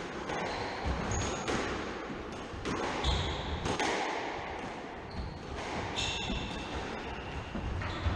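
Squash rally: sharp cracks of the ball off rackets and walls every second or so, with rubber-soled shoes squeaking in short high chirps on the wooden court floor as the players move.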